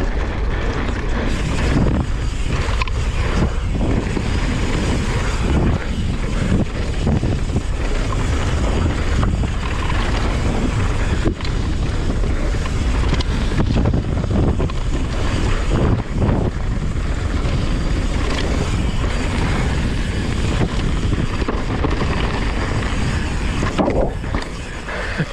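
Wind rushing over the camera's microphone, with the tyres running on a dirt trail and frequent short knocks and rattles from a Yeti SB150 mountain bike descending at speed.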